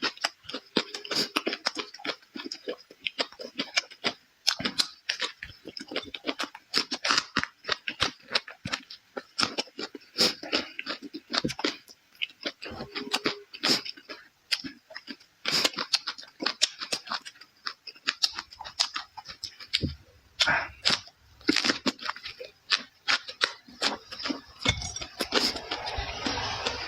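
Close-miked chewing and crunching of food by a person eating, with many quick, irregular crunches and crackles.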